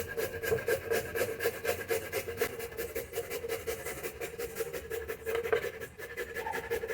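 Raw beetroot being grated on a fine hand grater: quick, even rasping strokes, about five a second.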